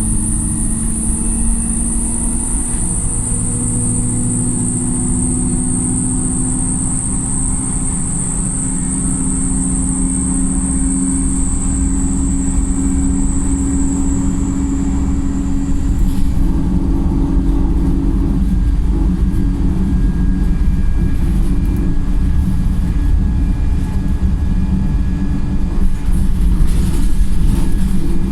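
Wright StreetLite single-deck bus heard from on board, its engine pulling with the pitch slowly rising, and a high-pitched whine that slides slightly lower and stops about halfway through. Rattles and knocks from the bus body near the end.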